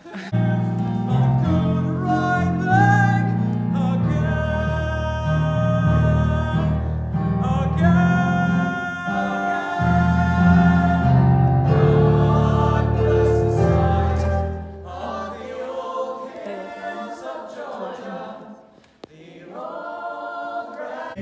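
Ensemble cast singing together in chorus over accompaniment with sustained low notes. About three-quarters of the way through the low accompaniment drops out and the voices carry on more softly.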